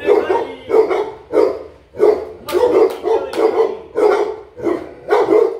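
Two yellow Labrador retrievers barking over and over with heads raised, about two barks a second.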